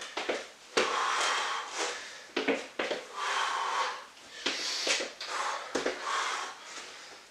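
A person breathing heavily during lunges and squats, four long drawn-out breaths, with a few sharp thuds of trainers landing on a wooden floor.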